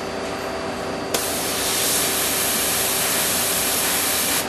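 A compressed-air blast hissing on abruptly about a second in, holding steady for about three seconds and cutting off sharply near the end. Under it runs the steady hum of the Amada Wasino Meister G3 CNC grinder.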